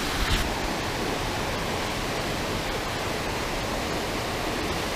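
Water rushing steadily over a small concrete spillway weir, an even hiss, with one brief thump about a third of a second in.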